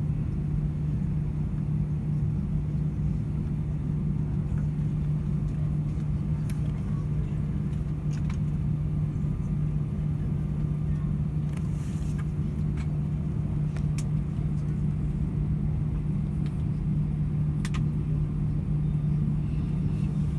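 Steady low drone heard inside the cabin of an Airbus A320-232 on the ground, with its IAE V2500 engines idling, and a constant low hum running through it. A few faint clicks from the cabin stand out here and there.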